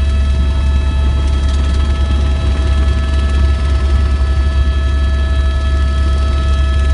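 Turbine helicopter in flight, heard from inside the cabin: a heavy, steady low rotor drone with a steady high turbine whine over it.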